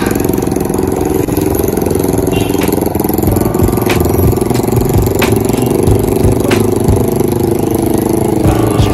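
Small engine running steadily under way.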